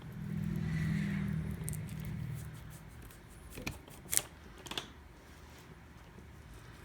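Seam ripper picking and cutting the factory tape off a wiring harness, with a few sharp clicks and snaps of the tape and wires between about three and five seconds in. A low steady hum runs for the first two seconds or so.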